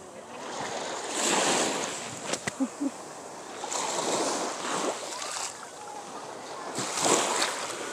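Surf washing in on a beach, swelling three times: about a second in, around four seconds in and near the end. Wind buffets the microphone.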